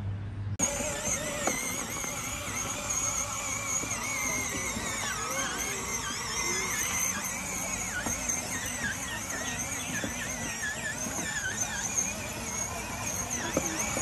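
Electric drive motors and gearboxes of a 12-volt kids' ride-on truck whining as it drives over grass, the whine wavering in pitch. It starts about half a second in.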